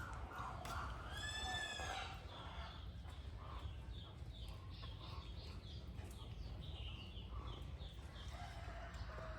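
Chickens: a rooster crows once, briefly, about a second in, over short high chirps that repeat about three times a second.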